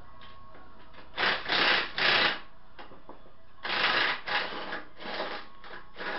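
Ratchet clicking in short bursts as an engine mount bolt is worked loose: a pair of strokes about a second in, then a run of several more in the second half.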